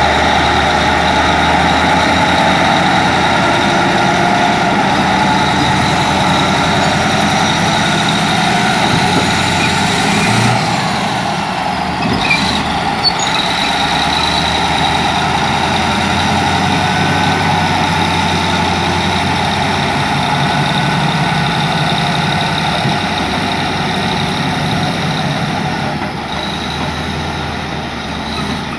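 Caterpillar D8L bulldozer's V8 diesel engine running steadily at idle, with a steady high whine over the low engine note. It eases slightly about ten seconds in.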